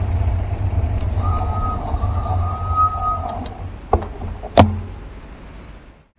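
Road traffic with the low, steady rumble of car engines close by. A steady high tone lasts about two seconds, then two sharp knocks come about half a second apart, the second the louder.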